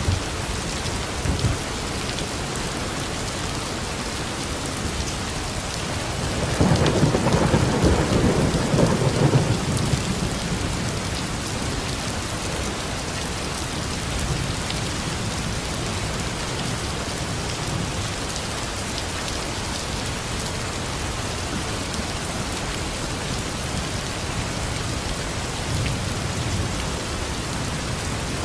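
Steady rain falling, with a roll of thunder that swells up about a quarter of the way in, rumbles for roughly three seconds and fades back into the rain.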